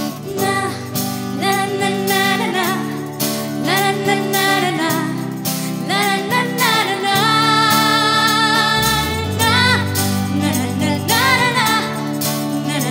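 A young girl singing a song into a microphone over instrumental backing, her voice sliding between notes with vibrato and holding one long note around the middle.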